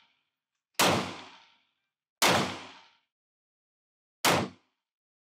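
Three 9mm pistol shots. The first two, about a second in and just past two seconds, ring on with a long reverberant tail that dies away over most of a second. The third, past four seconds, has its reverb reduced and stops short.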